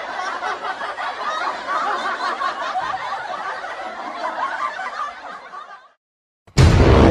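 A group of people laughing and snickering together, fading out about six seconds in. After a moment of silence, loud music cuts in abruptly near the end.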